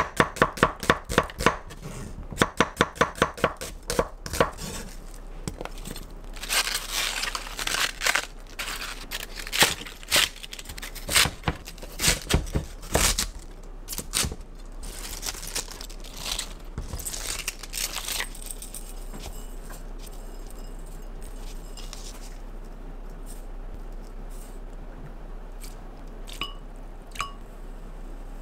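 Knife chopping food on a cutting board: quick, even chops, about four a second, for the first few seconds. Then come irregular scraping and rustling bursts with scattered cuts, and from about two-thirds of the way in only quieter kitchen handling with a few light clicks.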